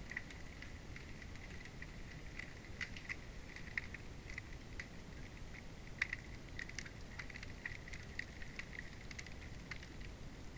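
Hydrophone recording under river ice: a low, steady rumble of flowing water with irregular crackling clicks, several a second, a few of them sharper and louder.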